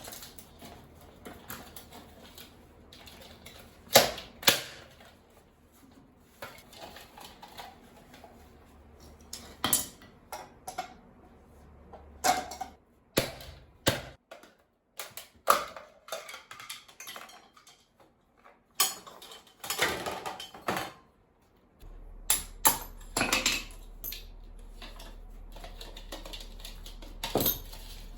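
Irregular clicks, knocks and clatter of scrap metal and plastic parts being handled, pried apart and dropped into bins, with the two loudest knocks about four seconds in.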